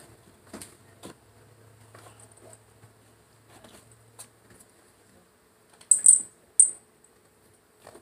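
Metal tag on a cat's collar clinking as the cat swats its paw through a railing: a scattered series of small, high metallic clicks, the loudest three coming close together about six seconds in.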